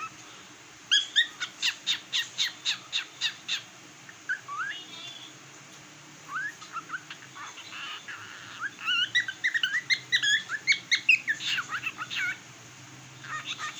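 Cockatiel whistling and chirping: a quick run of repeated sharp notes about a second in, a few soft rising whistles, then a dense burst of chirps and warbles about nine seconds in, starting up again near the end.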